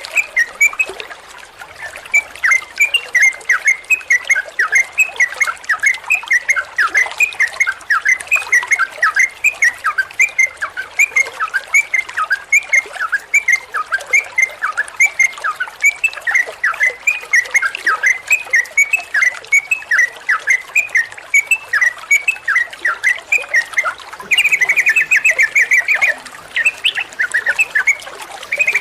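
Yellow-vented bulbul singing without pause, a rapid stream of short chirping notes, breaking into a faster trill near the end.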